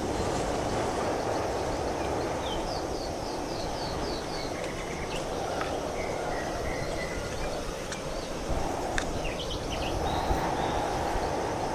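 Strong wind rushing and buffeting, swelling and easing. A bird gives a quick run of descending chirps a few seconds in, with scattered other chirps and a few sharp clicks.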